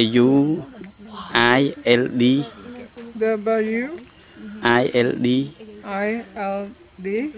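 Steady, high-pitched insect drone that holds a constant pitch throughout, with people's voices talking on and off over it.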